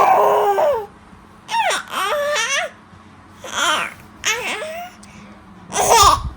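Baby babbling: a series of about five short, high-pitched vocal sounds whose pitch slides up and down, with short pauses between them.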